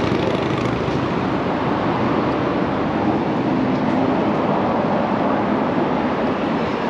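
Steady city street ambience: an even, loud wash of noise with no single distinct event standing out.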